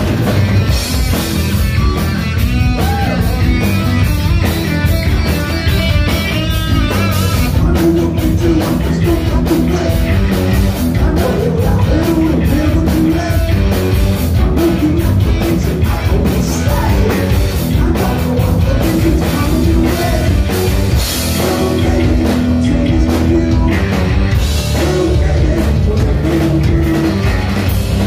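Heavy metal band playing live: distorted electric guitars, bass and drums. About seven seconds in, the drumming turns to fast, even hits that run on through the rest.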